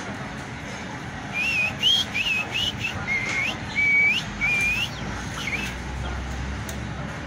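Golinha (white-throated seedeater) giving a run of about nine short whistled call notes in quick succession, several ending in a rising flick.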